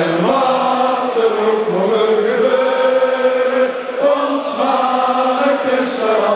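A large crowd of football supporters singing a club song together, in long held notes.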